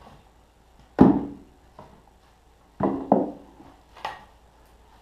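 Split birch firewood knocking wood on wood as pieces are stacked by hand onto a wooden pallet: separate clunks, the loudest about a second in, a quick pair near three seconds and another at four.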